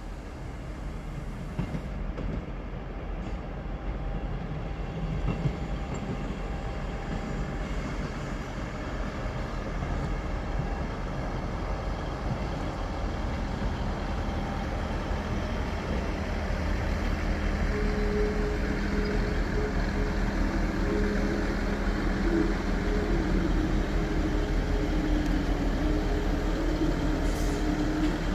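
ScotRail class 158 diesel multiple unit running, its diesel engines growing steadily louder as it draws closer. A few steady higher tones join the rumble about two-thirds of the way through.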